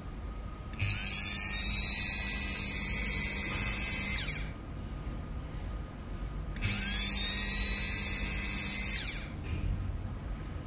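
Electric motor of a Servo Type 150 milling-machine power feed, run twice. Each time it spins up with a quickly rising whine, holds a steady high whine for a few seconds, then winds down as it is switched off.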